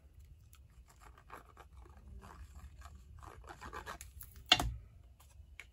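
Cardstock and paper being handled on a craft mat: light scratching, rubbing and small clicks, with one louder knock about four and a half seconds in.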